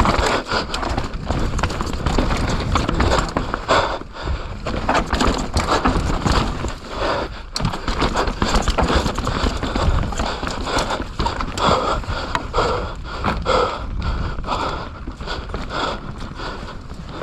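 Mountain bike ridden fast down a wet, rough trail: a continuous, irregular clatter of knocks and rattles as the tyres and bike hammer over roots and rocks.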